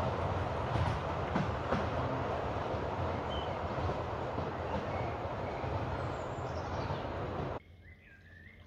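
Miniature 10¼-inch-gauge steam train running away along the track, the rumble of its wheels on the rails slowly fading. The sound cuts off suddenly near the end, leaving a few faint bird chirps.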